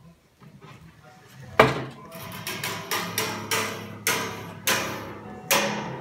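A large wooden cuckoo-bird mechanism on metal rails being worked: a sharp knock about a second and a half in, then a run of irregular clanks and knocks of wood and metal, with a low hum underneath.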